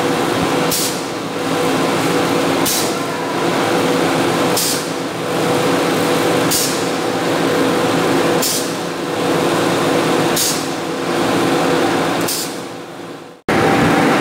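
Plastic packing strip production machinery running with a steady hum, with a short hiss about every two seconds, seven times. Near the end it cuts off abruptly and another steady machine hum follows.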